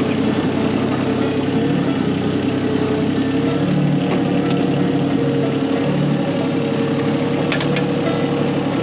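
Volvo EC20 mini excavator's diesel engine running steadily with a steady whine while the boom is worked, the sound growing heavier for a couple of seconds midway. A few short clicks come near the end.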